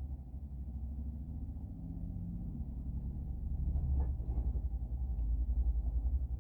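A low rumble that swells towards the end, with a faint knock about four seconds in.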